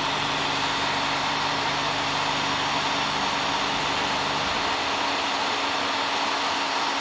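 Electric heat gun running steadily, blowing hot air to shrink heat-shrink tubing onto a connector. A low hum within it drops away about four and a half seconds in.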